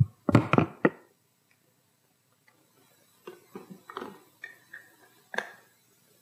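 A DSLR camera and its lens being handled and set down on a table: a louder clatter about half a second in, then a scattering of sharp clicks and light knocks.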